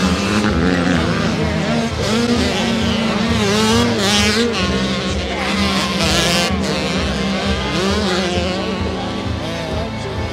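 Several 85 cc two-stroke motocross bikes racing, their engines revving up and falling back, more than one at a time.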